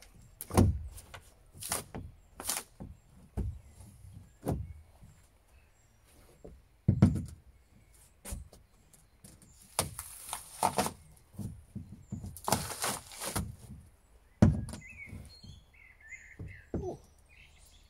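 Pry bar working up plywood floor panels in a fiberglass speedboat: a string of sharp knocks and thuds, with two longer scraping, tearing sounds about ten and thirteen seconds in. Birds chirp faintly near the end.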